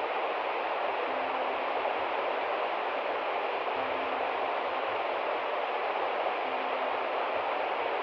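Steady rush of a shallow river running fast over rocks, with several small waterfalls spilling down a mossy rock bank.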